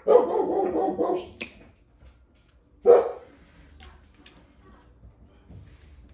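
A dog barking: a run of barks over the first second or so, then a single bark about three seconds in.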